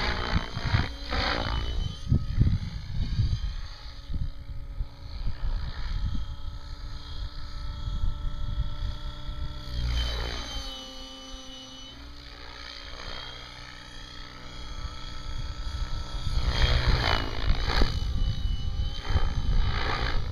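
Electric radio-controlled 3D helicopter (Mikado Logo 600 SE) flying aerobatics: the motor and rotor-blade whine rises and falls in pitch as the model manoeuvres. About ten seconds in the pitch drops sharply and the sound goes quieter, then it swells again near the end.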